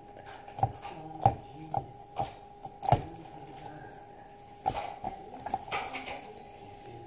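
Homemade slime mixed with sand and squishy pieces being squished and poked by hand, giving sharp clicks and pops: a handful in the first three seconds and another cluster near the end. A steady faint hum runs underneath.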